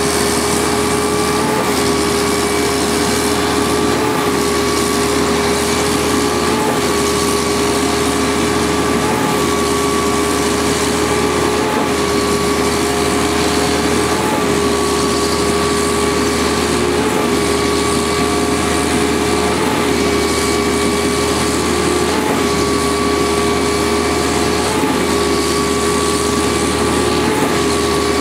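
REED XT39 truck-mounted concrete boom pump running under load: a steady, high engine and hydraulic drone with a brief break about every two and a half seconds, the rhythm of the concrete pistons changing stroke as it pumps.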